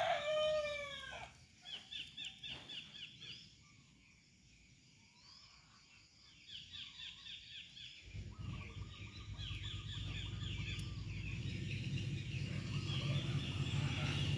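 A rooster crowing, the call ending about a second in. Runs of quick, high, repeated bird chirps come and go. From about eight seconds a low, steady rumble comes in and slowly grows louder.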